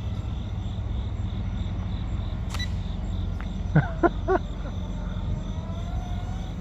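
Low rumble of wind on the phone's microphone, with the faint whine of the RC F-22 Raptor park flyer's electric motor sliding up and down in pitch as the throttle changes. Crickets chirp steadily in the background.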